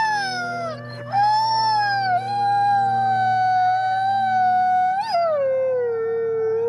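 Gray wolf howling close up: a long, steady howl that breaks off briefly about a second in, then holds its pitch and drops lower near the end. Fainter howls from other wolves of the pack sound behind it.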